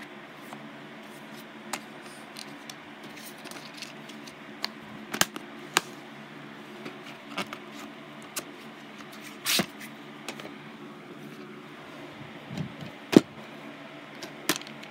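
Plastic DVD keep case being handled: scattered clicks and snaps as it is closed and turned over, with a rustle about halfway and the loudest knock near the end, over a steady low hum.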